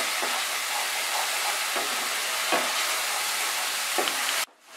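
Spice masala of onion, tomato and ground spices sizzling in mustard oil in a non-stick wok, stirred and scraped with a flat spatula: a steady sizzle with a few spatula strokes. It is the masala being fried down (kosha) with a splash of water, and the sound cuts off suddenly near the end.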